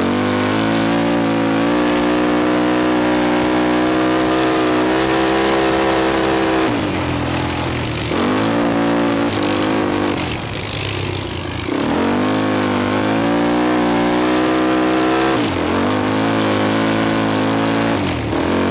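ATV engine running under throttle, its pitch dropping and climbing back again several times. About ten seconds in there is a rougher, noisier stretch.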